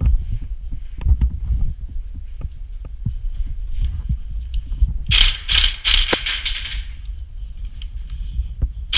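Low, irregular thudding and rumbling from movement against a body-worn camera. About five seconds in comes a rapid string of sharp airsoft gun shots lasting just under two seconds.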